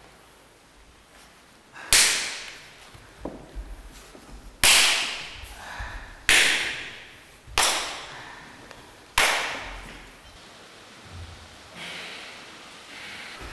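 Five loud, sharp cracks, irregularly spaced a second or two apart, each ringing out briefly and dying away.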